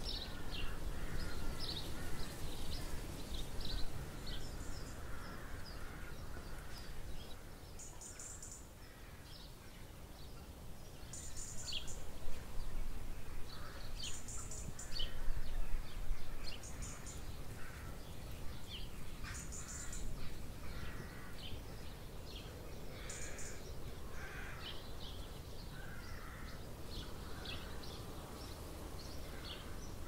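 Wild birds chirping and calling, with a short high call repeating every few seconds among many quick chirps, over a steady low rumble.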